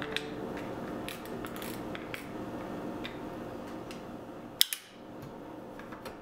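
Kiev 60 medium-format film camera handled while being loaded with film: scattered light clicks and rubbing of the film and spools, then a sharp double click about four and a half seconds in as the hinged back is shut.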